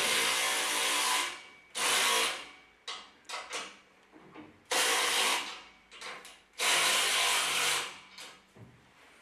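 A power tool with a socket runs down the nuts of a U-bolt exhaust clamp in four short bursts of about a second each, with small metal clicks between them.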